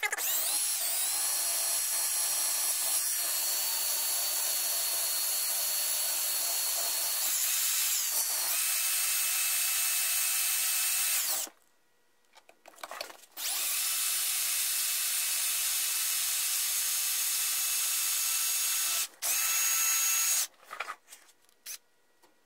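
Power drill spinning a brass screw head coated in lapping compound against the SKS rifle's muzzle to lap the crown. The motor whine runs steadily for about eleven seconds, with a brief dip in pitch partway through. It stops, then runs again for about six seconds, and a short burst follows near the end.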